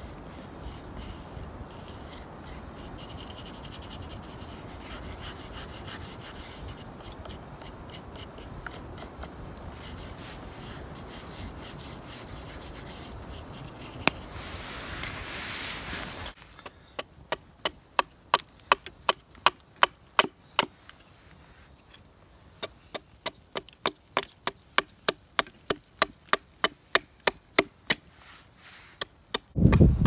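A charred stick scratching and rubbing on a split wooden board as a spoon outline is drawn and shaded in. About halfway through it gives way to sharp wooden knocks, about three a second, in short runs.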